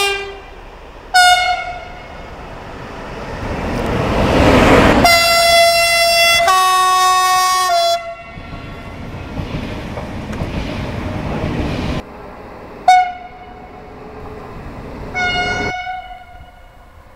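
Train horns sounding at a station: two short toots at the start, then a long, loud horn call that changes pitch partway through, over the rumble of a passing train, and two more short toots near the end.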